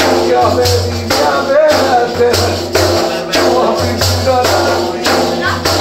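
Live folk song: a man singing, with a large hand-held frame drum beaten in a steady rhythm under the voice, the strokes carrying a bright rattle.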